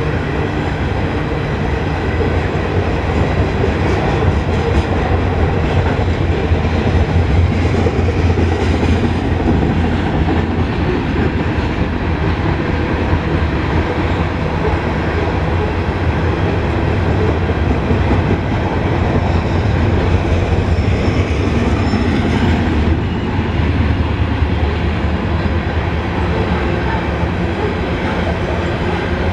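Coal hopper cars of a freight train rolling past, a steady, loud rumble of steel wheels on the rails with close-set clatter over the joints.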